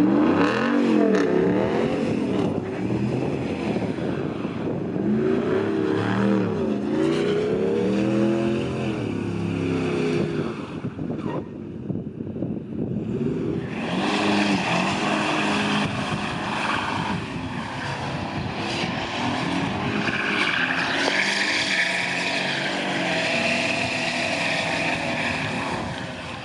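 The Ram 1500's 5.7-litre HEMI V8 revving up and down again and again as the truck spins donuts on snow. After a brief lull about halfway through, the Toyota Tundra's twin-turbo V6 takes over, revving with the hiss of its tyres spinning and spraying snow.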